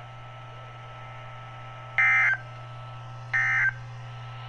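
Emergency Alert System end-of-message data bursts from a NOAA Weather Radio station: short, identical, screechy digital tone bursts about a second and a half apart. They come over a low steady hum and mark the end of the broadcast severe thunderstorm warning. Two bursts fall about halfway through and near the end.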